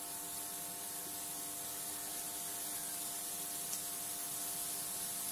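Steady, faint hiss of oil heating in a steel kadai with mustard seeds and urad dal in it, before the seeds start to splutter, over a steady low hum.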